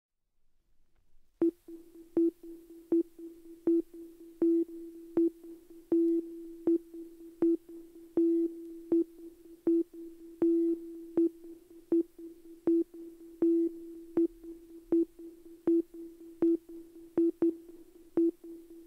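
Opening of a sparse electronic house track: after about a second and a half of silence, a single electronic tone pulses on and off about every three-quarters of a second, each pulse starting with a click, some held a little longer.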